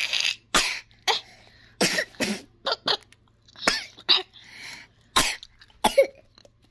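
A young child coughing: a run of about a dozen short, sharp coughs at irregular intervals.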